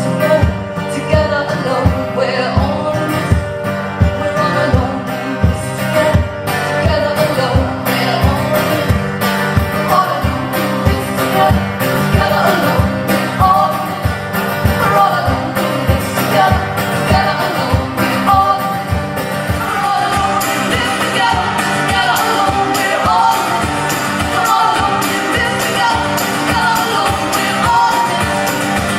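Live band playing a folk-rock song: singing over guitars with a steady beat.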